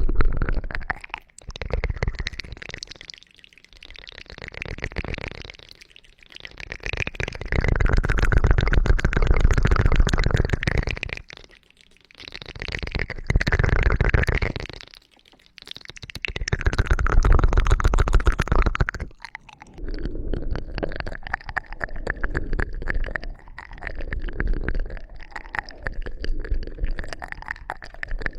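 ASMR ear cleaning on a microphone: dense crackling and rubbing that swells and fades every few seconds. After about 19 seconds it settles into a softer, more even rubbing.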